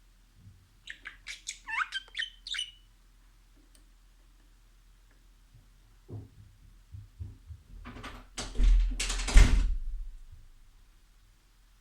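Budgerigar chirping, a quick run of short squeaky calls that slide in pitch. Later come several soft thumps and a loud rustling, bumping burst close to the microphone.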